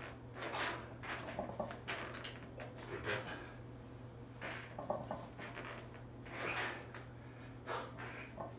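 A weightlifter's sharp, forceful breaths in and out through a set of heavy barbell back squats, one every second or so, over a steady low hum.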